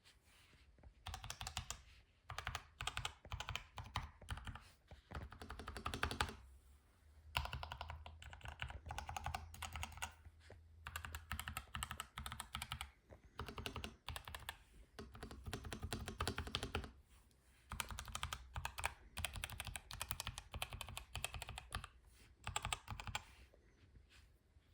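Typing on a Keydous NJ80 mechanical keyboard with orange silent tactile switches: rapid runs of key presses in bursts of a few seconds, with brief pauses between them.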